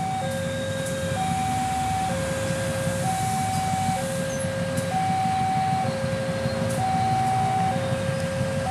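Railway level crossing warning alarm sounding a repeating two-tone high-low signal, each tone about a second long, over the low steady rumble of a CC 203 diesel-electric locomotive pulling its train away from the station.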